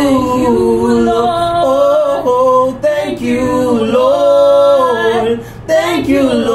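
A woman's and a man's voice singing a gospel song of thanks a cappella, drawing out long held notes that slide between pitches, with a short break about five and a half seconds in.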